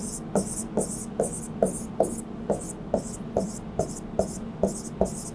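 Pen tip tapping on an interactive whiteboard screen: a steady series of light taps, a little over two a second, as small marks are drawn one after another.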